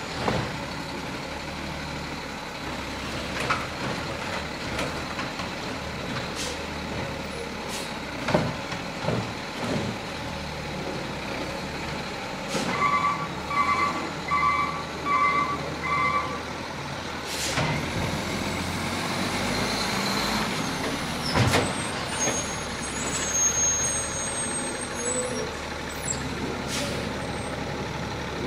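Garbage truck's diesel engine running steadily, with a run of five reversing beeps about halfway through and several sharp knocks and short bursts of noise scattered throughout.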